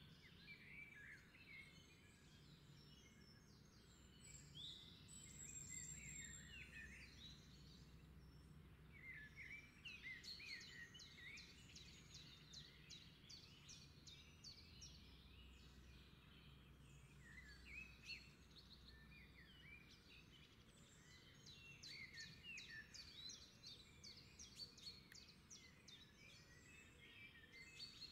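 Faint chorus of songbirds, with many short chirps and quick trills coming in clusters, over a low steady background hum.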